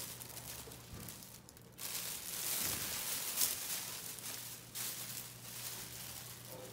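Plastic wrapping bag crinkling and rustling as it is pulled off a monitor, loudest in the middle stretch.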